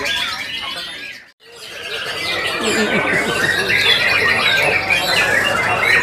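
Many caged white-rumped shamas (murai batu) singing at once in competition: a dense mix of whistles, fast trills and harsh chatter. The sound cuts out for a moment about a second and a half in, then resumes.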